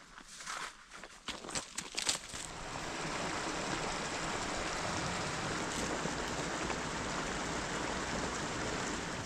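Footsteps crunching through dry autumn leaves for the first two seconds or so. A steady, even rushing noise then takes over and stays unchanged.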